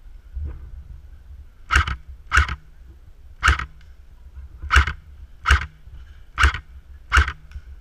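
Magpul PDR airsoft rifle firing seven single shots at uneven intervals, each a short sharp crack.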